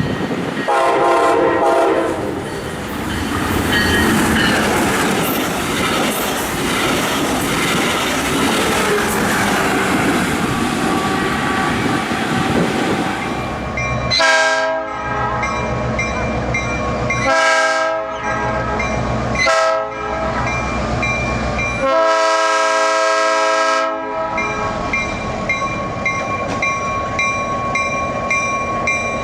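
A train running past with wheels clattering, and a short locomotive air-horn blast about a second in. Later a locomotive air horn sounds four chord blasts: two medium, one short and a long final blast, the long-long-short-long pattern of a grade-crossing signal.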